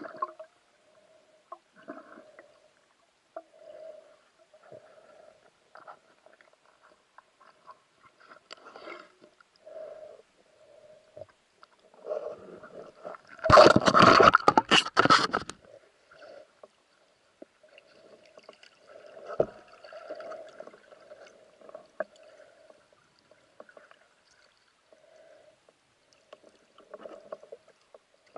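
Muffled underwater water noise from a swimming diver: faint swishes and gurgles every second or two, with a loud splashing, bubbling burst lasting about two seconds midway.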